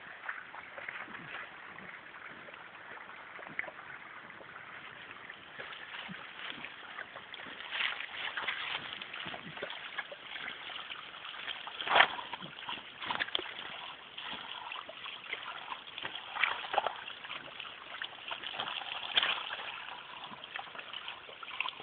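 Water trickling and splashing from a small pipe outlet in a bank, broken by irregular splashes and slaps as a dog's muzzle pushes and snaps into the flow, with one sharp loud splash about halfway through.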